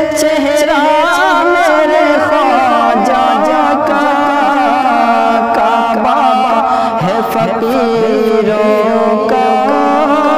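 A man's voice singing an Urdu manqabat, a devotional song, with wavering, ornamented melodic lines over a steady held background tone.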